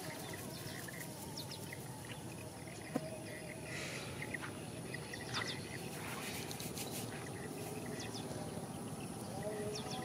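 Rural outdoor ambience: a steady background hiss with scattered short bird chirps, and one sharp click about three seconds in.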